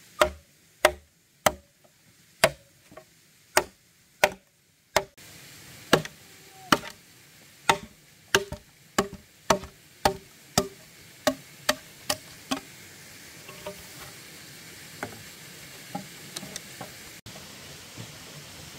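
Repeated sharp strikes on wood, each with a short hollow ring, at roughly one or two a second. A steady hiss comes in about five seconds in, and the strikes grow fainter and sparser in the second half.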